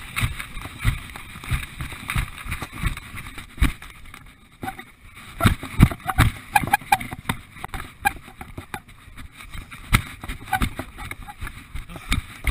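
Running footsteps and the jolting of a body-worn action camera as a runner jogs over grass and a dirt trail, with regular low thuds about two a second over a rustling noise. The sound drops away briefly about four and a half seconds in.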